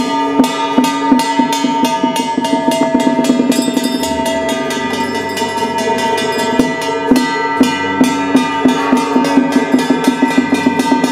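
Taoist ritual handbell shaken in quick repeated strokes, ringing steadily over the drums and percussion of a temple ritual ensemble.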